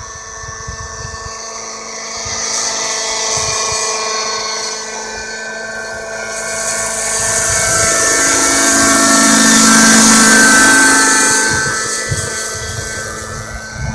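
Radio-controlled Bell 206 LongRanger scale helicopter on a Raptor 50 chassis flying past, its nitro glow engine and rotors making a high, steady whine. The whine grows louder to a peak about ten seconds in, then fades as it moves away.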